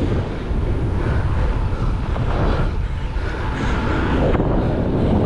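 Wind buffeting the microphone of a camera riding along on a moving road bike: a steady low rumble.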